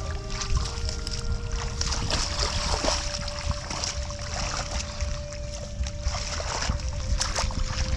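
Background music of slow held notes, over a low steady rumble and scattered short splashes and knocks of water.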